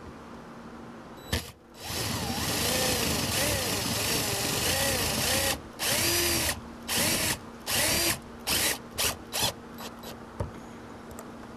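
Cordless drill/driver driving drywall screws through a plastic siding mounting block: one long run of about three and a half seconds with the motor speed wavering under load, then a string of ever shorter trigger pulses as the screw is snugged down.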